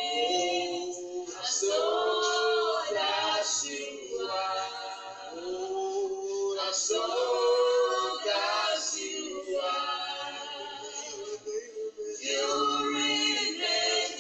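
Voices singing together in long held phrases.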